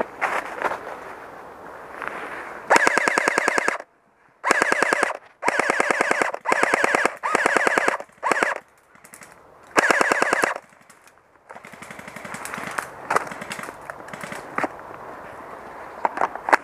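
Airsoft electric rifle firing about seven short full-auto bursts, each under a second, in rapid succession. A few scattered single clicks follow near the end.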